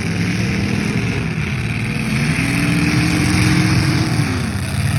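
Demolition derby car engines running and revving. One engine's pitch climbs about two seconds in, holds, then drops off near the end.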